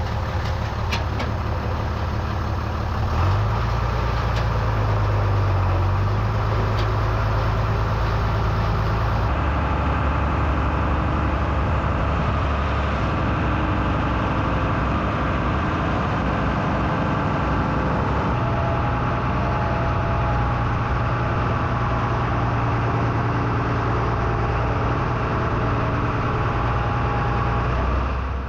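International 686 farm tractor's engine running, a steady low engine note that shifts pitch a few times.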